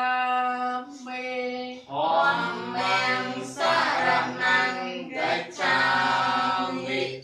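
Buddhist devotional chanting. A single voice holds long, steady notes, then a group of voices, lower male ones among them, joins in unison about two seconds in.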